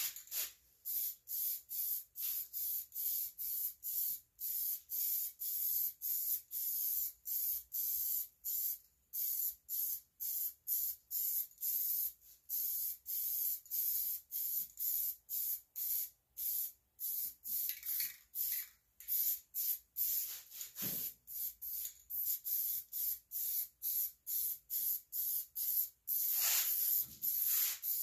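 Aerosol can of yellow spray paint hissing in short spurts, about two a second, as paint is sprayed on in quick passes.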